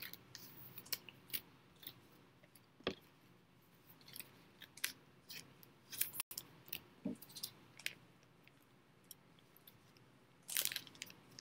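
Faint, scattered clicks and crinkles of trading cards and their plastic sleeves being handled, with a denser rustle near the end.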